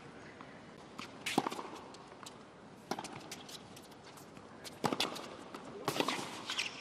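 Tennis ball struck by rackets and bouncing on a hard court, several sharp pocks a second or more apart.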